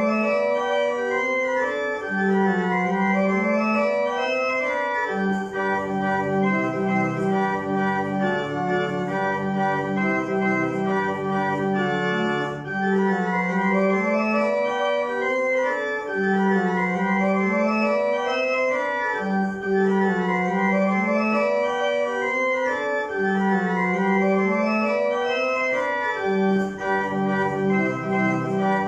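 Historic 1793 Grüneberg pipe organ playing a lively gigue. Quick running notes climb and fall in repeated arcs over a steady, repeating bass line.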